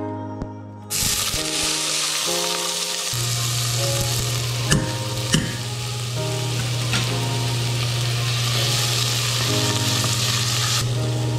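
Diced onion dropped into hot oil in a stainless steel saucepan, setting off a loud, steady sizzle that starts suddenly about a second in. A couple of sharp knocks on the pan come midway, and a wooden spatula stirs the frying onion near the end.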